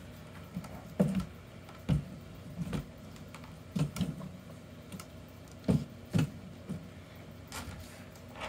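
Irregular soft knocks and taps, about a dozen, some in quick pairs.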